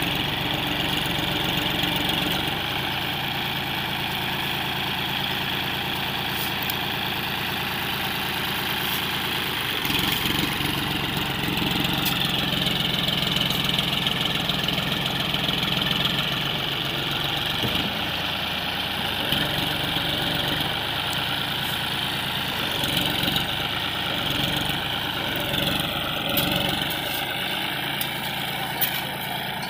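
John Deere 5105 tractor's three-cylinder diesel engine running while pulling a sand-laden trailer with its rear wheels dug into sand. About ten seconds in it gets louder, working hard under the heavy load, then settles back to a steadier run; the pitch falls near the end.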